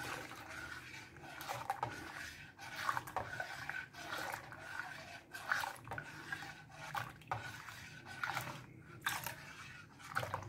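Steel spoon scraping around a stainless steel pan of milk in short, irregular strokes, about one a second, as the milk is stirred while lemon juice is added to curdle it.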